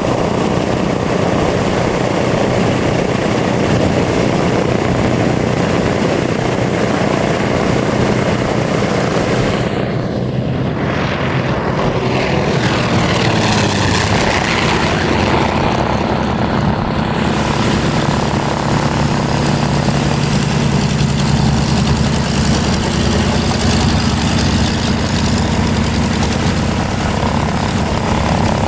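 Grumman TBM Avenger's 14-cylinder Wright R-2600 radial engine running loudly with a propeller drone, its note shifting in pitch about halfway through.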